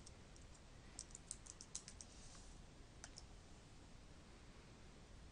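Faint computer keyboard keystrokes: a quick run of taps about a second in and a last pair of clicks about three seconds in, then only faint room noise.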